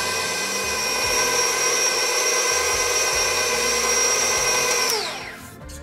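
KitchenAid Professional 5 Plus stand mixer running with its flat beater turning through thick brownie batter, its motor holding a steady whine. About five seconds in it is switched off and winds down with a falling whine.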